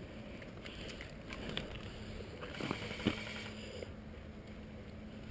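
Faint footsteps on gravel and rustling of clothing and gear as a player moves, with a light knock about three seconds in.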